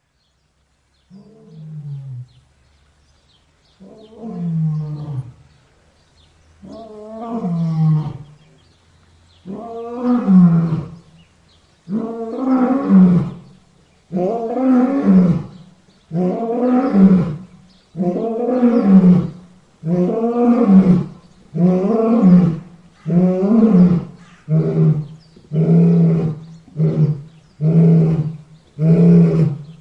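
A large animal's deep calls, about fifteen in a row, growing louder over the first ten seconds, then shorter and quicker near the end.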